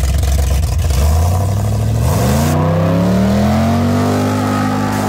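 Car engine revving: it runs steadily, then climbs in pitch about two seconds in and holds at higher revs.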